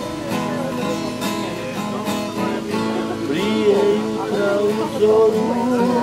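Acoustic guitar strummed in a steady rhythm, playing the instrumental gap between the sung lines of a song.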